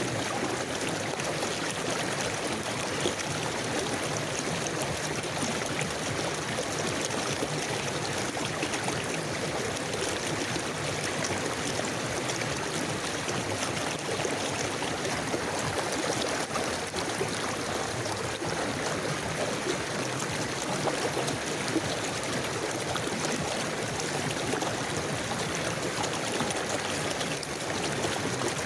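River water flowing steadily, a continuous rush with small gurgles.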